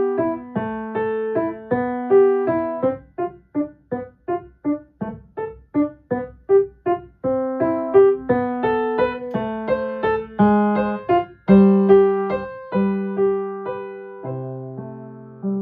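Solo piano playing a short beginner piece: slurred two-note phrases, then a passage of short detached staccato notes, then connected phrases again. It slows near the end into longer held notes with low bass notes underneath.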